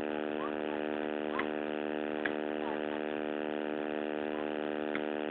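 Loud, steady electrical buzz from a damaged recording microphone: one fixed pitch with many overtones, unchanging throughout.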